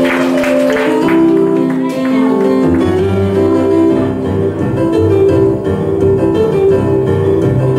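Instrumental music with a melody of held notes; a low bass line comes in about three seconds in.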